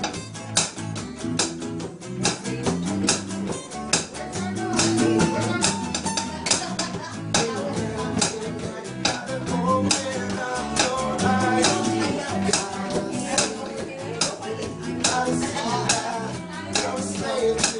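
Acoustic band playing live: strummed acoustic guitars keep a steady beat of sharp strokes under a singing voice.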